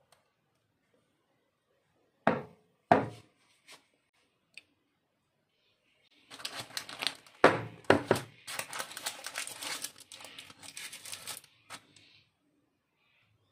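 Two knocks, then parchment baking paper in a loaf pan crinkling and rustling as hands handle it, with a few heavier knocks mixed in.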